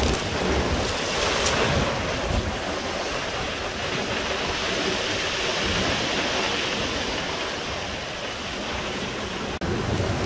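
Ocean surf breaking and washing over a cobble beach, a steady hiss, with wind gusting on the microphone in the first couple of seconds. The sound drops out for an instant near the end.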